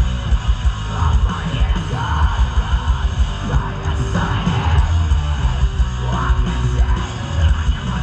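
Live heavy hardcore band playing loud through a festival PA: distorted guitars, pounding drums and heavy bass, with shouted vocals.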